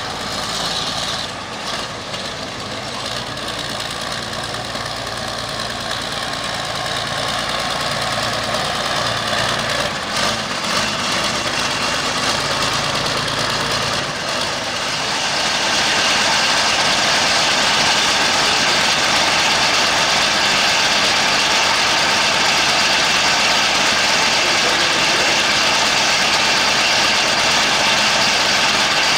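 Diesel engine of a modified field pulling tractor idling steadily, getting louder about halfway through.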